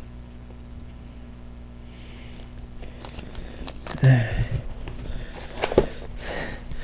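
Trading cards being handled and sorted: a few light clicks and rustles over a steady electrical hum, with a brief murmured voice sound about four seconds in.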